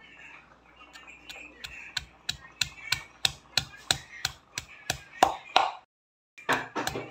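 Stone pestle pounding fried tempeh in a stone mortar: sharp knocks about three a second, getting louder as the tempeh is crushed. The sound breaks off for half a second near the end, then the knocks resume.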